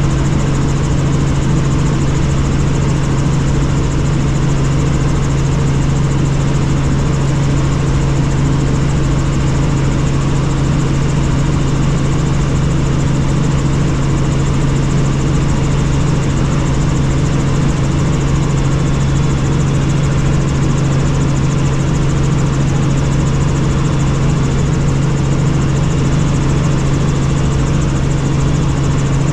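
Helicopter in flight, its engine and rotors running steadily with a strong low hum that does not change.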